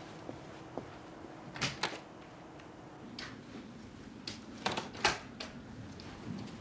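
A series of short, sharp knocks and clicks, some in quick pairs, the loudest about five seconds in, over a low room hum: something being handled, of the kind made by a door or cupboard.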